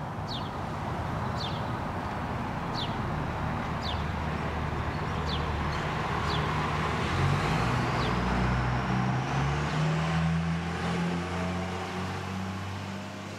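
Street traffic at an intersection: cars passing over a steady road noise, with short high chirps repeating every second or so in the first half. From about halfway, a city bus's engine hum builds and becomes the loudest sound.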